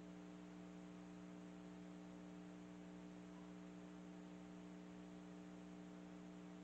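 Countertop ice maker running: a faint, steady hum.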